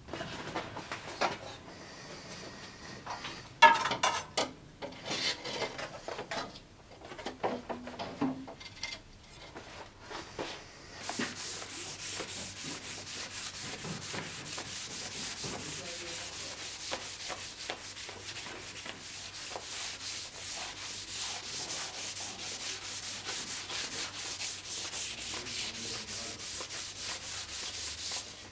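Abrasive paper being rubbed by hand back and forth along the heat-treated steel blade of a forged sword, in rapid, even strokes. First come a few knocks and clunks as the blade is handled, then the rubbing runs steadily.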